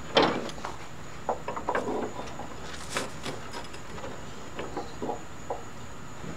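Scattered light rustles, taps and clicks of hands working a rubber drive belt around the metal mower deck and its pulleys, with one sharper click about three seconds in.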